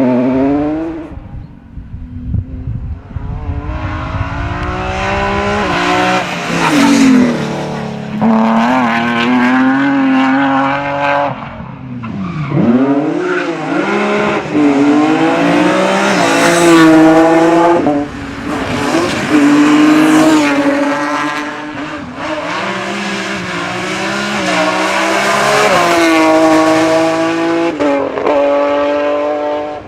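BMW 130i rally car with an M3 engine, loud, its note climbing and dropping again and again as it accelerates hard through the gears and lifts off, with a brief quieter spell about two seconds in.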